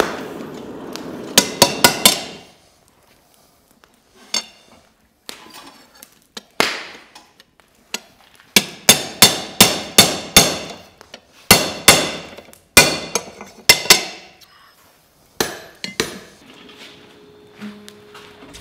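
Hand hammer striking a blacksmith's punch driven through a hot flat steel bar on the anvil: sharp ringing metal blows in bursts, about three a second at their fastest, with short pauses between.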